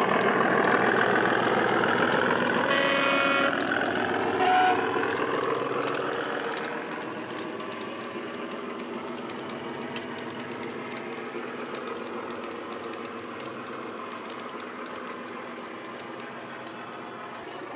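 Model Class 37 diesel locomotive's sound decoder playing an English Electric diesel engine through its small onboard speaker as the model runs past, with a horn blast about three seconds in and a short, higher horn note a second or so later. The engine sound then fades as the locomotive moves away, leaving the light clicking of the model wagons' wheels on the track.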